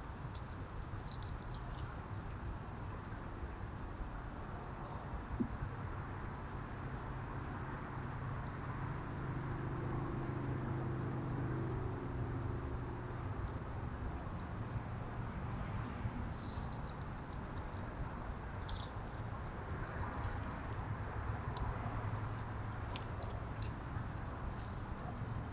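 Night insects, crickets by their sound, trilling in one steady high-pitched tone over a low background rumble, with a few faint clicks.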